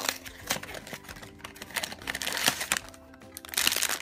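Cardboard blind box being handled and opened, with quick clicks and scrapes of card, then a foil bag crinkling loudly near the end as it comes out of the box.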